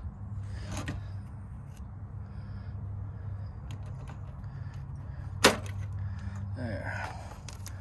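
Needle-nose pliers working the wire spade connectors off the terminals of an air conditioner's dual run capacitor, with a faint click about a second in and one sharp metallic click about five and a half seconds in, over a steady low hum.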